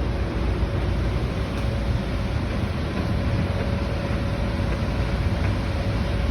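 Steady machinery and rushing-air noise with a deep rumble, unbroken throughout, with a faint steady hum running through it.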